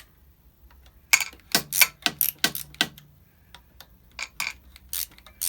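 Sharp, irregular metallic clicks and clinks from tools and clutch hardware while the motorcycle's clutch pressure-plate bolts are undone. A quick run of clicks comes about a second in, and a few more come near the end.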